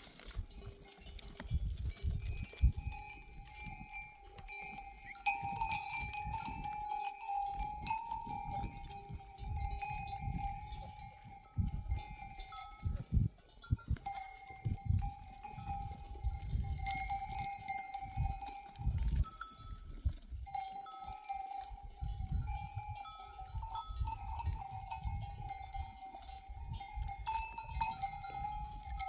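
Sheep bells clanking on a moving flock, ringing almost without a break, with a second, higher-pitched bell sounding now and then. Irregular low rumbling noise runs underneath.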